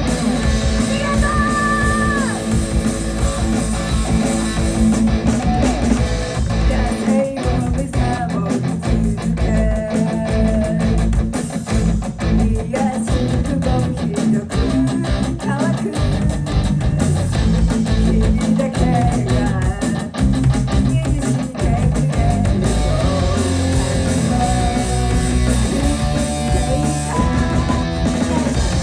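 Live rock band playing, with electric guitar to the fore and a voice singing at times.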